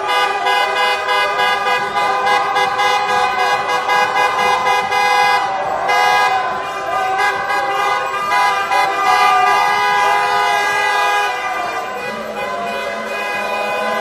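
Many car horns honking at once in celebration, long held blasts overlapping with short repeated toots, over a crowd cheering.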